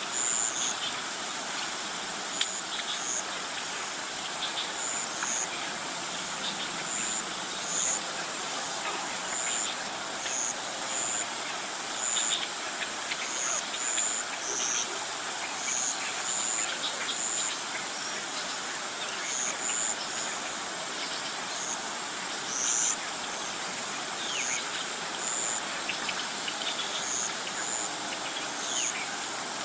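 Outdoor ambience of insects and birds: short, high chirps repeating about once a second over a steady hiss.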